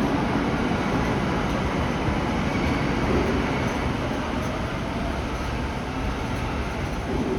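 Osaka Metro Tanimachi Line train moving through the underground station, a steady running noise that eases off slightly.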